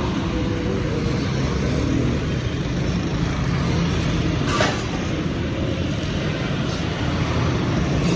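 Steady road and traffic noise of a car driving in city traffic, with one brief sharp sound about four and a half seconds in.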